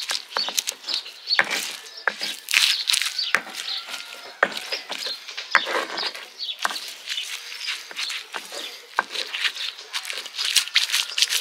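Stone roller crushing wet tomatoes, chillies and turmeric on a flat grinding stone (Nepali silauto and lohoro): irregular crunching, squelching and stone-on-stone scraping, with many short clicks throughout.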